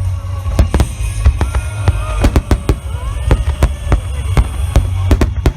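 Large aerial fireworks barrage: shell bursts going off about three a second over a continuous deep rumble of overlapping explosions, with music playing underneath.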